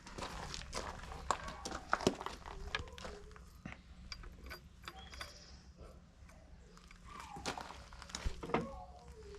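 Irregular sharp clicks and light metallic clinks of hand tools and a spark-plug socket as a new spark plug is threaded into a Yamaha 9.9 outboard's cylinder head.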